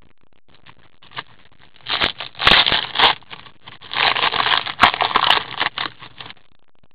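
Foil trading-card pack wrapper being torn open and crinkled by hand, in two runs of crackling with sharp clicks, about two seconds in and again about four seconds in.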